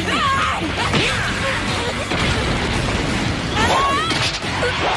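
Anime fight sound effects: rapid punches, impacts and whooshes, with shouted fighting grunts and cries from the characters' voices over background music.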